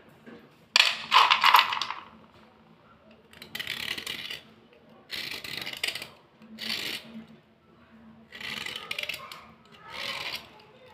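A metal blade scraping along white slate pencils in about six short, scratchy strokes, cleaning the chalky surface; the first stroke, about a second in, is the loudest.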